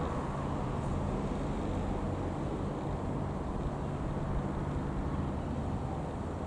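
Single piston-engine Cessna 152 light aircraft droning steadily as it flies past at a distance, a low, even hum.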